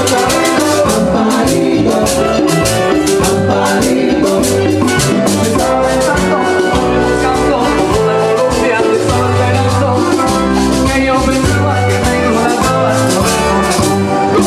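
Salsa dance music with maracas and drums keeping a steady beat over a moving bass line.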